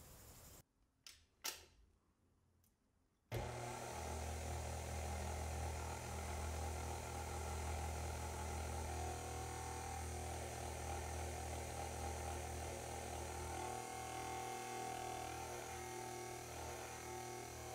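A few sharp clicks, then a KitchenAid Artisan stand mixer's motor starts suddenly about three seconds in and runs steadily with a low hum. Its flat beater is mixing dry ingredients into macaron paste.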